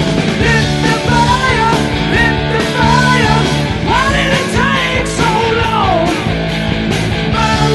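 Rock band playing an instrumental passage: a lead line of bending, wavering notes, typical of an electric guitar solo, over bass and drums.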